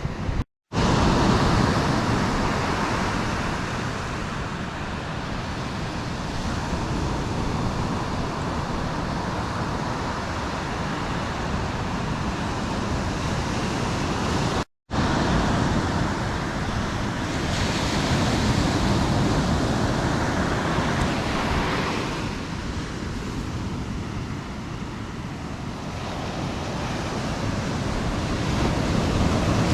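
Surf breaking on the beach with wind on the microphone: a steady rushing wash that swells and eases slowly. It cuts out completely for a moment twice, near the start and about halfway.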